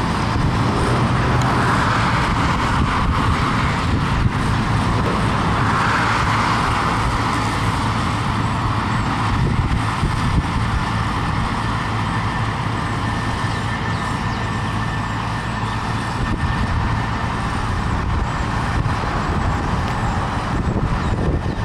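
John Deere 750 compact tractor's three-cylinder diesel running steadily at mowing throttle, about 2,300 rpm, with its 5-foot finishing mower driven off the PTO at 540 rpm.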